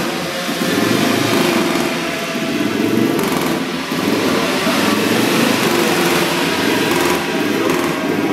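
Racing motorcycle engines running steadily, a loud, continuous engine noise.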